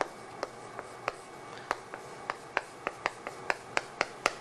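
Chalk striking and writing on a chalkboard as characters are written by hand: a string of short, sharp taps, about three a second, coming closer together in the second half.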